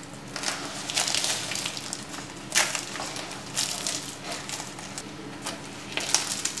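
Crisp, flaky layered crust of a baked saya çöreği (katmer-style pastry) crackling and crunching as it is torn apart by hand, in irregular bursts of crackles.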